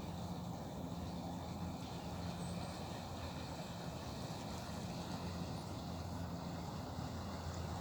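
Steady low engine drone with evenly spaced hum tones, over an even hiss that fits the fast-flowing, rain-swollen river.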